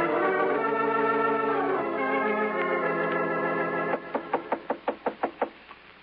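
Organ music bridge of held chords for about four seconds, then a quick run of about eight knocks on a door.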